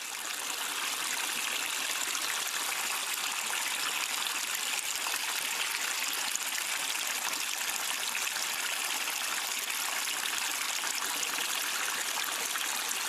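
Running water trickling steadily, an even hiss with no breaks.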